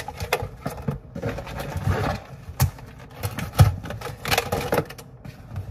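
Rustling and crinkling of a reusable shopping bag and plastic-wrapped groceries being handled, with a couple of thumps as items are set down on the counter.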